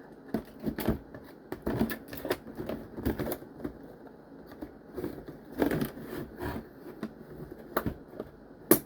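Plastic toy packaging being handled and cut open to free the toy, with irregular crinkles and clicks and one sharp click near the end.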